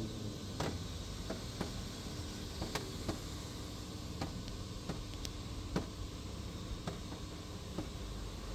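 Car-wash water heard from inside the car cabin: a steady hiss of spray on the body and glass, with irregular sharp ticks of drops and jets striking the roof and windows.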